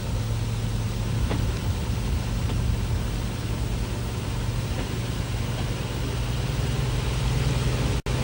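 Walker diesel railcar running along the narrow-gauge line, heard from on board: a steady low drone over running noise. The sound drops out for a moment near the end.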